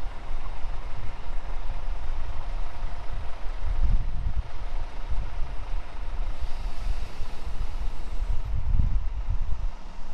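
Truck engine and road noise inside the cab while driving: a steady low rumble with a hiss above it that swells slightly now and then.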